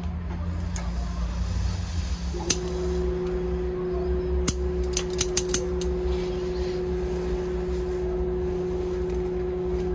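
Bonsai scissors snipping twigs off a ficus ginseng: a few sharp clicks about two and a half and four and a half seconds in, then a quick run of four snips around five seconds. A steady low hum runs underneath, and a steady tone comes in after about two seconds.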